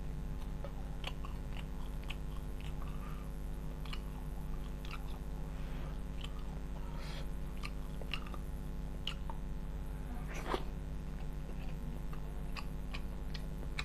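Close-miked chewing and mouth smacks as a man eats rice and banana-blossom curry by hand, in short irregular clicks over a steady low hum.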